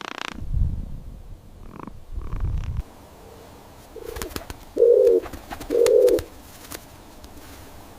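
A bird giving three short, low calls about a second apart, the last two loudest, after a low rumbling in the first few seconds.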